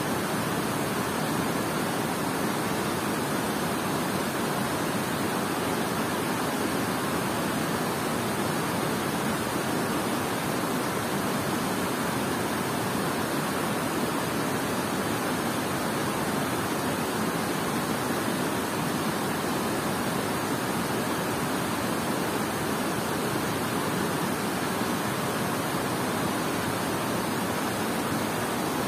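Steady rush of water pouring over a dam spillway and churning in the fast river below it.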